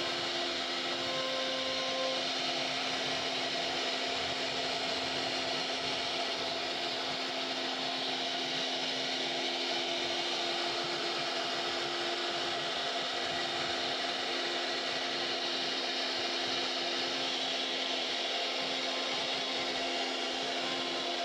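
CNC router spindle running steadily with a whine, its carving bit milling a relief pattern into a wooden panel.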